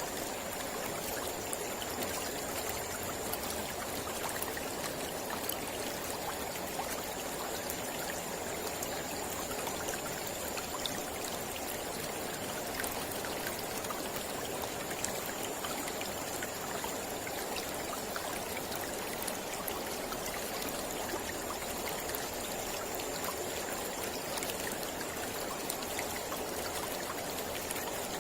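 Mountain river flowing: a steady, unbroken rush of water with faint little splashes scattered through it.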